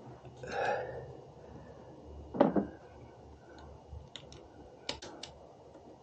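Small clicks and a single louder knock from hands fitting wiring and hardware at the scooter's battery terminal and bracket; the knock comes about two and a half seconds in, and a quick run of sharp clicks comes near the end.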